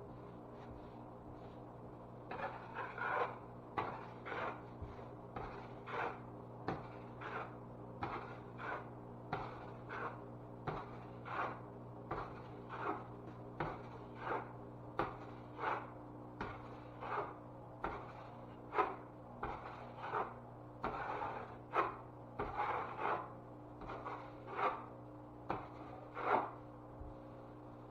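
A hand tool scraping or rubbing over a drywall patch in a steady run of back-and-forth strokes, about one and a half a second, beginning about two seconds in and stopping near the end.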